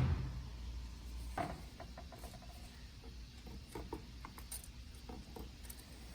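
Faint, scattered clicks and light knocks of transmission parts being handled, with a short ringing metallic clink about two seconds in.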